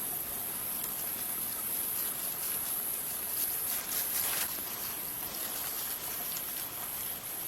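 Outdoor forest ambience: a steady, high, even insect-like hiss over a soft water-like rush, with a few brief crackles about four seconds in.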